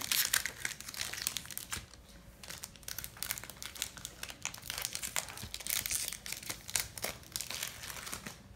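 Foil Pokémon TCG booster pack wrapper crinkling irregularly as it is handled and torn open.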